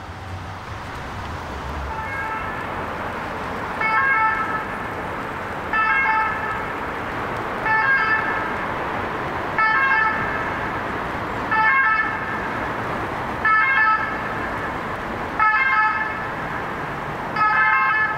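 An emergency vehicle siren, its note repeating about every two seconds, over a steady hum of city traffic.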